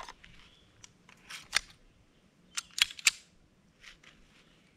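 Sharp metallic clicks and clacks of a SIG Sauer P226 Mk25 pistol being handled and worked, not fired, in a few quick clusters.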